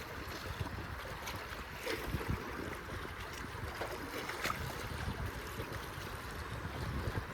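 Steady wind on the microphone over the rush of water, with a few faint clicks about two seconds in and again past the middle.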